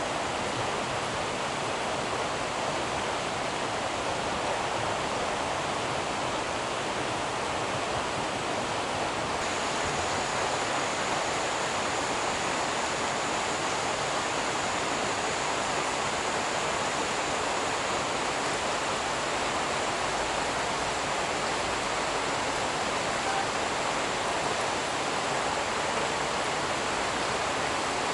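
Steady, even rain hiss with no breaks.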